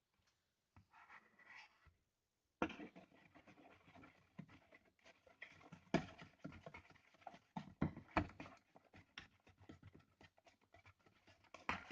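Shaving cream being rubbed and squished between hands: a wet, irregular crackling and squelching that starts about two and a half seconds in.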